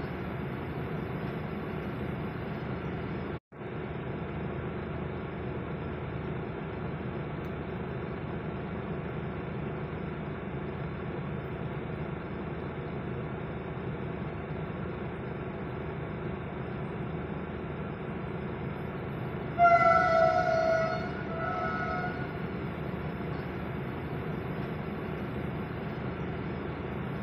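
Vande Bharat Express train running past on the rails with a steady rumble. Its horn sounds twice about three quarters of the way through, a long blast followed by a short one.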